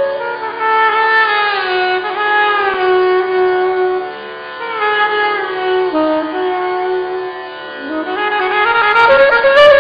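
Saxophones playing a slow Indian classical melody, the notes sliding and bending between pitches, with the line falling through the first few seconds and climbing again near the end.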